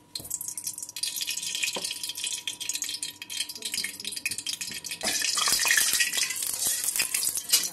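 Ghee and oil sizzling and crackling in a hot kadai (wok). About five seconds in, the sizzle jumps louder as vegetables go into the fat and a metal spatula stirs and scrapes them against the pan.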